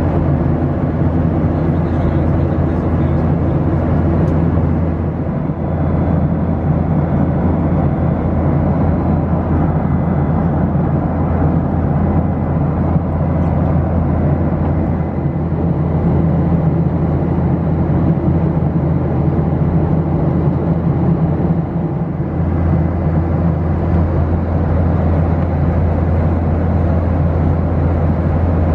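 Steady drone inside a Boeing 737-900 airliner cabin: engine and airflow noise with a deep hum underneath, shifting slightly in tone a couple of times.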